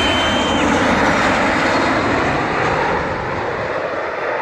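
Airliner passing low overhead close to the runway, its engine noise a loud, dense roar with a high whistle that stops about half a second in; the roar eases off over the last second or so as it moves away.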